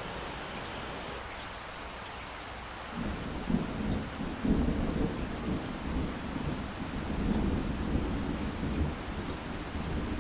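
Steady rain hiss, then about three seconds in a low rolling rumble of thunder sets in and keeps going over the rain.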